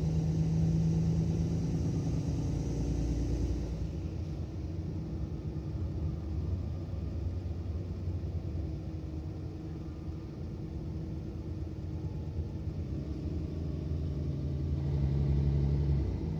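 Mercedes-Benz Citaro O530 city bus's diesel engine and drivetrain heard from inside the passenger cabin while driving. The engine note is strong for the first few seconds, eases off about four seconds in, and swells again near the end before dropping away sharply.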